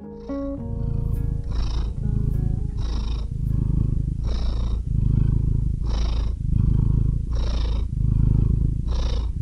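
A cat purring in a steady rhythm, one breath cycle about every one and a half seconds.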